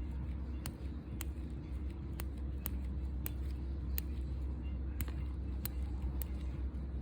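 Pedicure knife making sharp, irregular clicks about every half second as it pares hard, cracked skin on a big toe, over a steady low hum.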